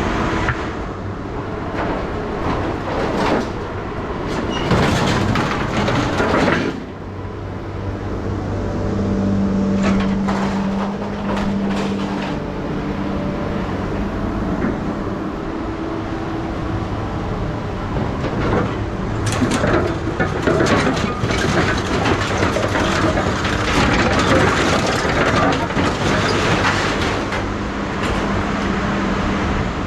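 A motor vehicle's engine running steadily, with irregular metallic rattling and clanking over it.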